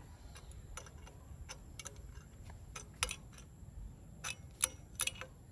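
A wrench tightening nuts on a galvanized steel gate-opener pivot bracket: irregular, sharp metallic clicks, about ten in all, with a louder one about three seconds in.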